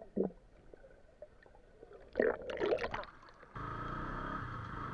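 Water bubbling and gurgling recorded underwater by an action camera, in two short spells with near quiet between. About three and a half seconds in, it cuts sharply to the steady run of a motorcycle engine with wind rush.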